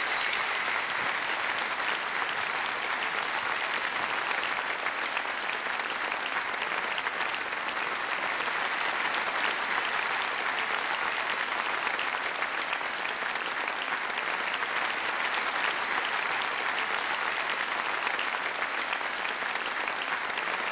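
Large audience applauding steadily, a dense, continuous clapping that neither builds nor fades.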